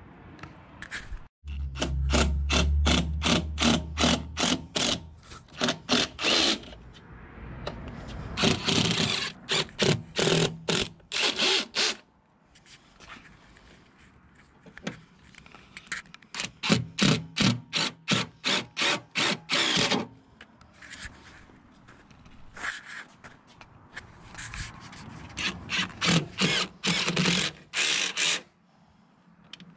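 DeWalt 20V cordless drill boring holes through the steel body of a Jeep TJ, run in several stretches of quick, stuttering pulses with short pauses between.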